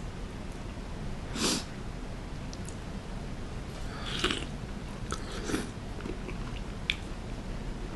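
Eating sounds from someone taking spoonfuls of soup curry from a wooden spoon: short sipping and chewing noises about a second and a half in, around four seconds and again near five and a half, then a sharp click near the end, over a steady low hum.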